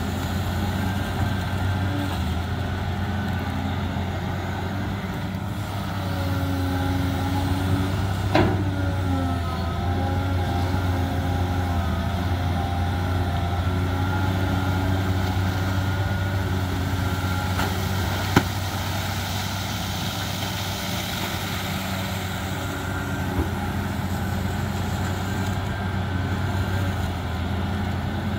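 Cat hydraulic excavator's diesel engine running steadily under working load, with a higher whine that wavers as the boom and bucket move. Two sharp clanks from the bucket and linkage, one about eight seconds in and one past the halfway point.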